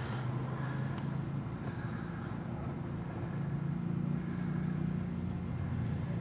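A steady low engine hum, unbroken throughout.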